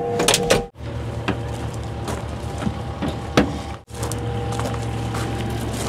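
Cat 309 excavator's diesel engine running steadily, with scattered sharp snaps of breaking wood. The sound breaks off abruptly twice.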